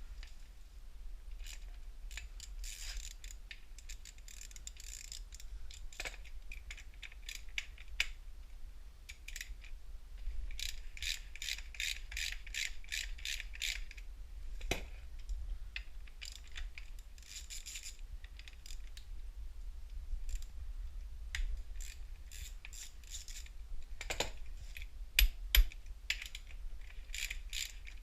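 Hand socket ratchet clicking in quick runs of pawl clicks as fasteners are turned, with several sharp knocks a little before the end.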